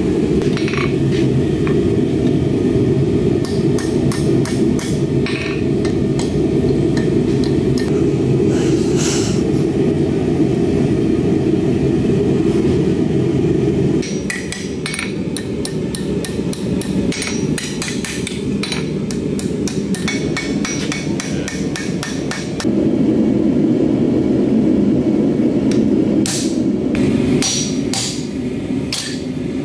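Hammer blows ringing on hot steel and an anvil, irregular strikes as a hook is bent and a hole is punched, over the steady rush of a running forge.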